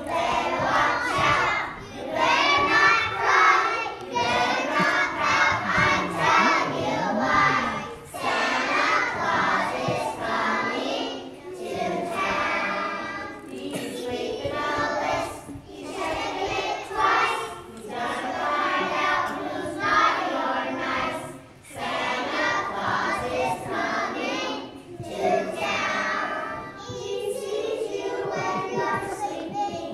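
A group of preschool children singing a song together, in short phrases with brief breaks between lines.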